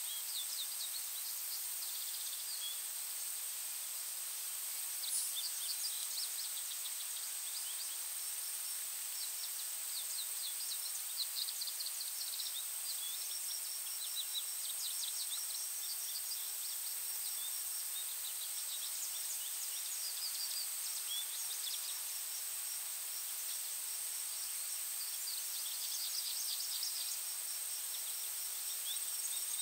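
Forest ambience with songbirds singing: short runs of quick high notes that come and go. Underneath are a continuous even hiss and a steady high-pitched tone.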